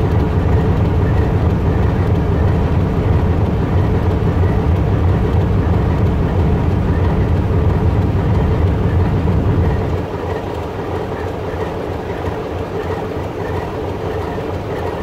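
Alco RS-3 diesel locomotive's engine running, heard from inside the cab as a steady low rumble. About ten seconds in the rumble drops and its deepest part fades.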